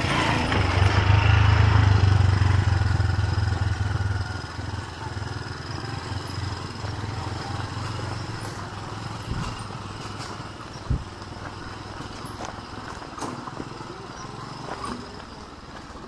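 A motor vehicle's engine going by, loudest in the first two to four seconds and then fading away over the next few, with a steady thin high buzz underneath.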